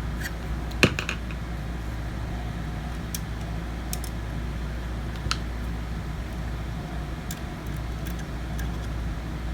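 Small scattered clicks and taps of a screwdriver and screws working the metal drive caddy onto a laptop solid state drive, with one sharper click about a second in, over a steady low hum.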